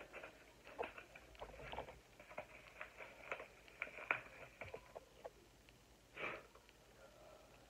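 Small crinkles and clicks of packaging being handled, followed about six seconds in by a single sniff.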